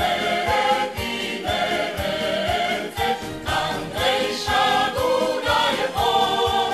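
Background music: a choir singing held notes over a steady beat of about two strokes a second.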